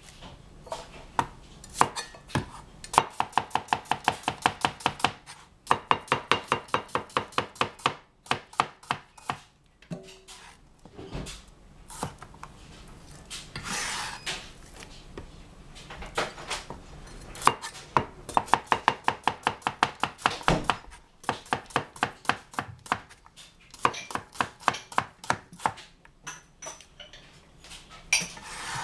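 Chinese cleaver slicing cucumbers on a plastic cutting board: quick runs of knife strokes, about seven a second, broken by short pauses, with a longer scraping swish about halfway through.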